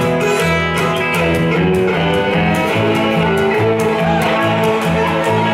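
Live instrumental country music from fiddles, electric guitar and a plucked upright bass.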